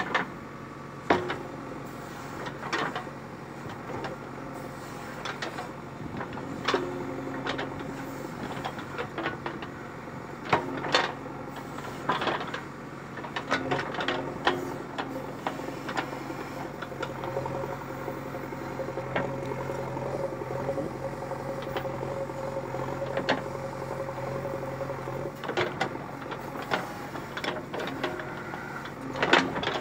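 JCB 3DX backhoe loader's diesel engine running steadily while the backhoe digs, with repeated sharp knocks and clunks from the bucket and arm. The engine note grows stronger for several seconds past the middle.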